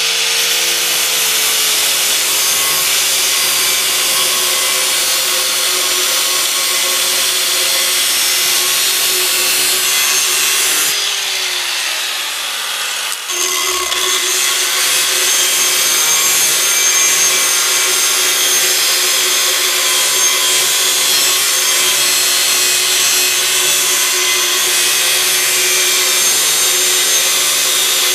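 Electric angle grinder with a thin cutting disc, cutting through a rusted steel lawnmower blade: a steady high motor whine over a harsh grinding hiss. About eleven seconds in the motor winds down, falling in pitch, then spins back up a couple of seconds later and carries on cutting.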